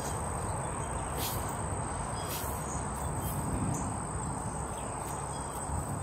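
Insects trilling: a steady high-pitched note that does not change, with fainter pulses about once a second, over a low steady background noise.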